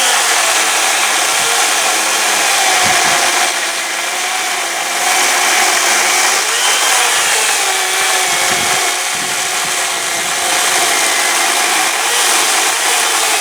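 Makita UC3551A corded electric chainsaw running flat out while cutting into the end grain of a log. The motor's whine wavers in pitch as the chain bites and eases through the wood.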